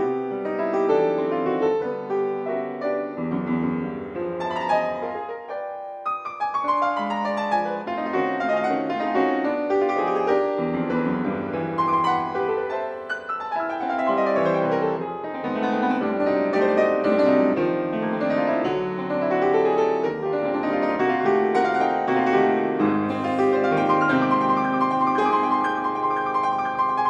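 Solo piano playing a flowing classical concert piece, with dense runs of notes that sweep up and down the keyboard.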